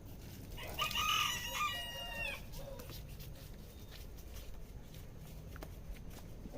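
A rooster crowing once, starting about a second in and lasting under two seconds.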